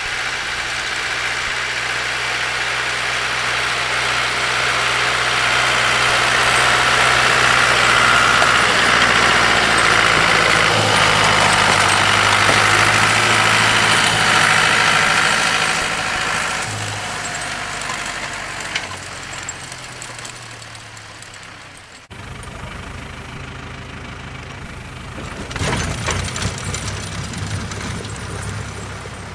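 Deutz tractor running while it clears snow, growing louder with a rushing noise as it comes close, then fading as it moves away. After a sudden cut, a tractor engine runs more quietly and briefly revs near the end.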